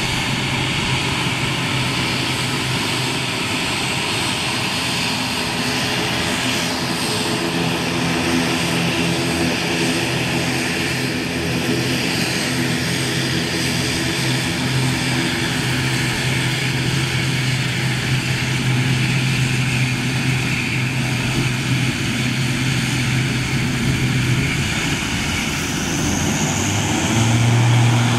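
ATR 72-600 turboprop airliner's two Pratt & Whitney PW127M engines and propellers running at taxi power as the aircraft taxis: a steady propeller drone with a low hum, growing louder near the end.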